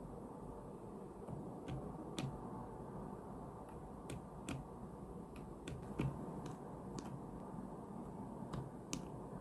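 Scattered soft clicks of keys and controls being pressed on an FL-Esports CMK75 mechanical keyboard fitted with Outemu silent Lime tactile switches, about a dozen irregular presses over a low steady background hiss.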